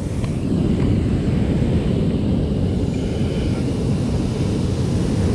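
Steady low rumble of wind buffeting the action camera's microphone, with water moving around the kayak hull.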